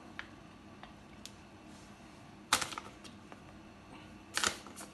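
Kitchen handling noises as shredded cheese is sprinkled by hand over a sauced pizza base in a pan: a few faint ticks, then two short, sharper clicks about two seconds apart.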